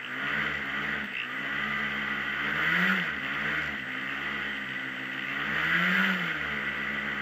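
Racing hovercraft heard from on board: its engine and thrust fan running hard, the engine note rising and falling as the throttle is worked, climbing highest about three seconds and six seconds in. A steady rushing hiss of fan and air runs under it.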